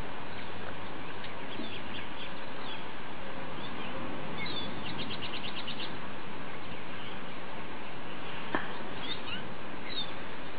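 Small birds chirping over a steady background hiss, with a short rapid trill about five seconds in and a single sharp click a few seconds later.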